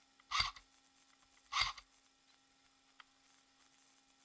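Two slow footsteps crunching on a rubble- and grit-covered floor, about a second apart, followed by a faint click.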